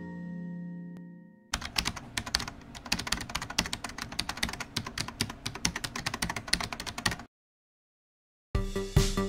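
Rapid computer-keyboard typing, a quick run of clicks lasting about six seconds. Before it a music sting fades out, and after a short silence electronic music with a steady beat starts near the end.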